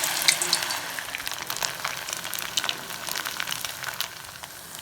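Maida-batter-coated upma cubes frying in hot oil in a kadai, a steady sizzle with fine crackling pops that gradually dies down.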